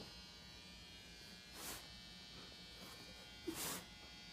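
A faint steady electrical buzz, with a sharp click at the start and two short hissing noises, one about two seconds in and one near the end.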